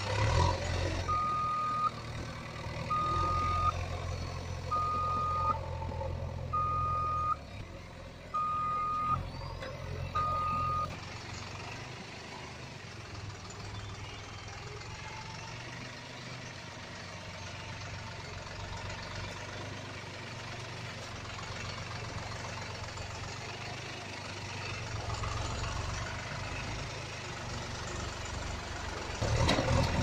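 Truck reversing alarm beeping six times at an even pace, about one beep every two seconds, over a low engine rumble. After about eleven seconds the beeping stops and a quieter low rumble continues.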